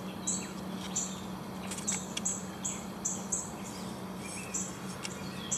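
Short high-pitched chirps repeating about two or three times a second over a steady low hum, with a few faint rustles and light clicks as leaves are laid into the habitat container.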